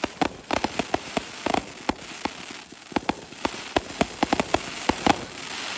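Fireworks going off in a dense, irregular volley of sharp bangs and crackles, with a hissing crackle building toward the end.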